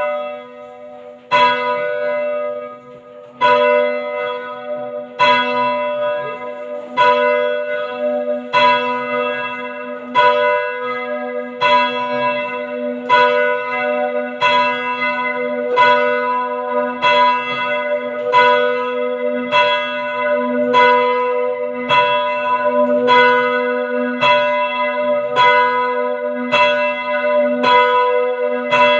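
Church tower bells rung full-circle by hand and being rung down. Separate strikes that start about two seconds apart and come steadily closer together, to under a second apart, over a low hum note that rings on throughout.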